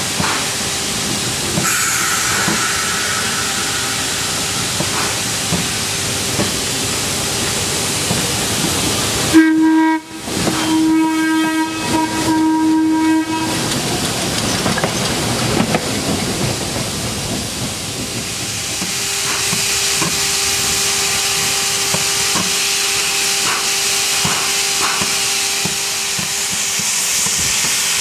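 Steady hiss of steam from a JS 2-8-2 steam locomotive. A whistle sounds one long note about nine seconds in, broken once briefly and lasting about four seconds, and an electric interurban car passes close by around the middle.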